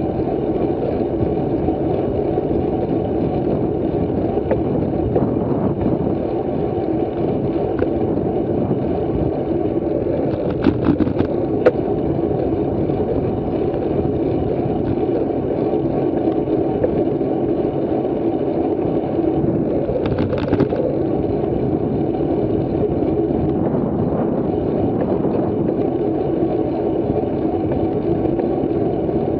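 Steady wind and rolling road noise on a bicycle-mounted camera's microphone while riding at about 27 km/h, with a few sharp clicks about eleven seconds in.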